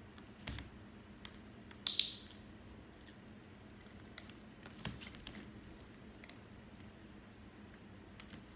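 A sharp double click about two seconds in, then scattered light ticks of a small dog's claws on a hardwood floor as it gets up and walks.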